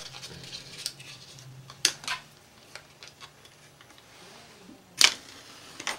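Handling noise at a workbench: a few sharp clicks and taps, a close pair about two seconds in and the loudest near the five-second mark.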